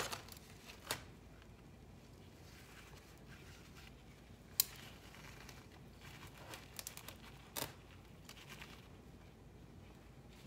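Gloved hands pressing and working gritty, sandy potting soil around a succulent in a ceramic pot: faint rustling and crunching, with a few sharp clicks, the loudest a little under halfway through.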